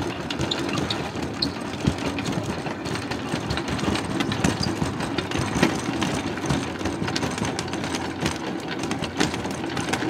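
Hand-cranked two-frame stainless steel honey extractor spinning hard, its crank gearing giving a steady rattling whir with many small clicks. The spinning frame is throwing honey out against the drum walls.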